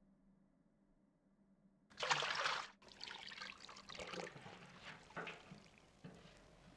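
Near silence, then about two seconds in a loud splash of bathwater, followed by water sloshing and trickling in uneven surges.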